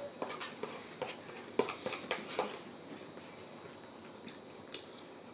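Quiet eating sounds: a spoon scraping and clicking in a black plastic shepherd's-pie tray, with mouth sounds of chewing. There are a handful of short clicks, most of them in the first half and two more near the end.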